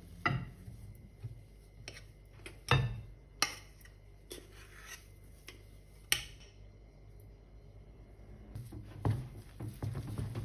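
A wooden spatula scrapes mashed potato out of a saucepan into a glass mixing bowl, with a few sharp knocks of the pan and spatula against the bowl; the loudest comes about three seconds in. Near the end comes the soft stirring and scraping of the spatula working the stiff potato and choux dough together.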